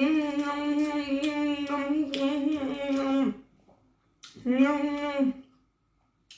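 A woman's long, drawn-out hummed "mmm" of enjoyment while eating, held on one pitch for about three seconds, then a second shorter one about a second later, each dropping in pitch as it ends.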